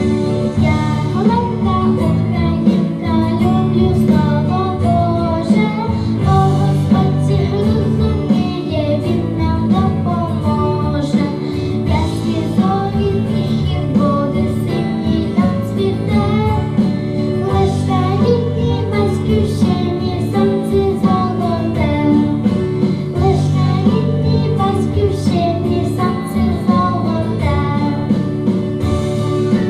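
A young girl singing a song over instrumental accompaniment.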